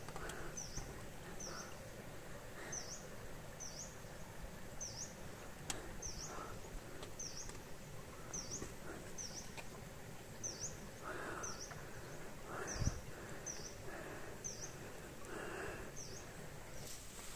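A bird repeating a short, high chirp about once a second over steady outdoor background noise, with a single low thump about thirteen seconds in.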